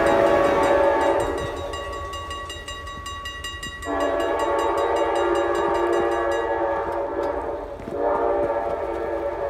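Amtrak locomotive's K5LA five-chime air horn blowing a chord as the train moves away. The horn drops back after about a second, comes in strongly again about four seconds in, and sounds once more after a short break near the end. Over the first two-thirds there is a fast, even ringing of the grade-crossing bell.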